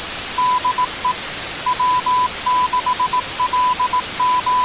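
Morse code (CW) tone, a single pitch near 1 kHz, keyed in dots and dashes over a steady hiss of radio static. The pattern reads "DE W6LG", a ham station sending its callsign.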